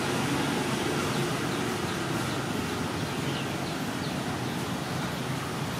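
Steady low background rumble, with a few faint soft clicks of a cat chewing its food.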